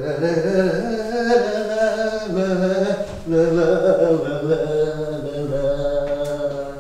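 A man singing a wordless "ta-ra-ra" tune in long held notes. It comes in two phrases of about three seconds each, with a short break about three seconds in.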